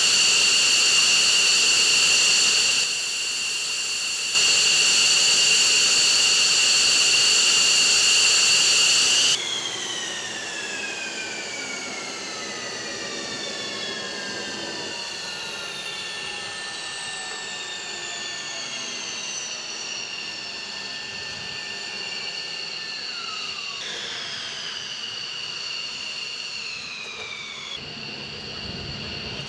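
The F-15E Strike Eagle's twin jet engines idle with a loud, steady high-pitched whine, then are shut down about nine seconds in. The whine falls slowly in pitch as the turbines spool down, and a second falling whine starts near the end.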